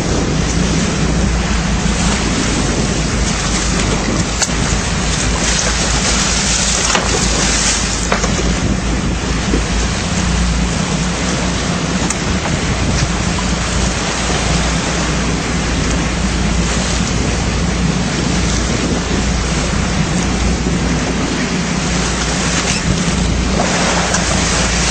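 A boat under way: a steady rush of wind and water spray along the hull, over a low, steady engine drone.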